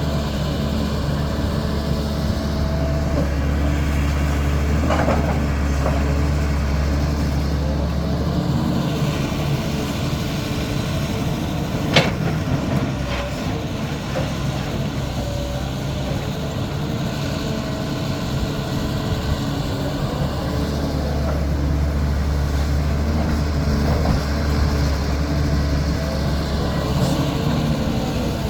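Caterpillar 320D excavator's six-cylinder diesel engine running steadily at work, its hum easing and rising as it digs and loads, with a few sharp metallic clanks, the loudest about twelve seconds in.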